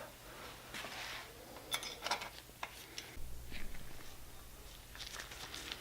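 Faint handling sounds of small chainsaw parts being fitted: a few light clicks in the middle, with soft rustling.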